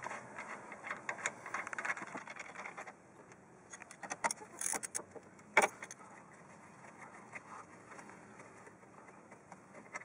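Socket ratchet clicking rapidly for about three seconds as a loosened brake caliper bolt is backed out, followed by a few sharp metallic clinks of tools and bolts.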